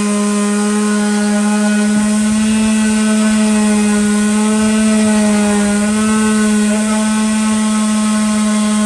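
Electric power sander running steadily against a wood round, a loud even motor whine whose pitch sags briefly a little past the middle and then recovers.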